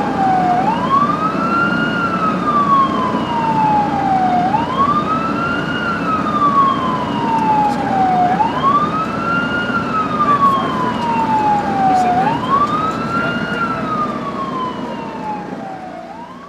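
Ambulance siren on wail, its pitch sweeping up quickly and then falling slowly about every four seconds, over the steady rumble of the moving vehicle. It fades out at the end.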